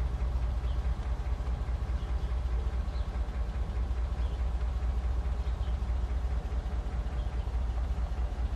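The Rolls-Royce Silver Cloud II's 6.2-litre V8 idling steadily, a low, even rumble heard from inside the cabin.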